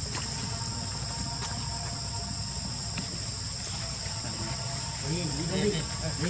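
Steady insect chorus, a constant high-pitched drone on two pitches, over a low rumble. A voice comes in briefly near the end.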